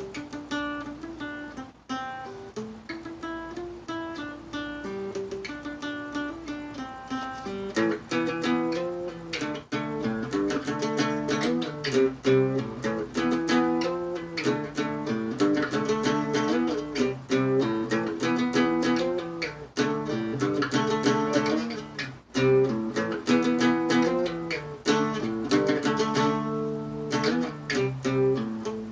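Acoustic guitar playing a picked riff, single melody notes at first, then fuller with bass notes added from about eight seconds in.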